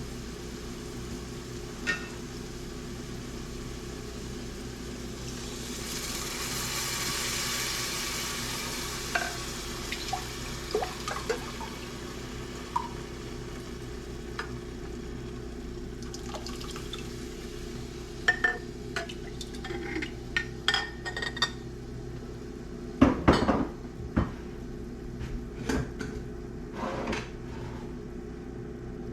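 Kitchen clatter as chicken stock is poured into a soup pot: a hiss of pouring liquid several seconds in, then clinks and knocks of a measuring cup against the pot and counter, the loudest near the end. A steady low hum lies underneath.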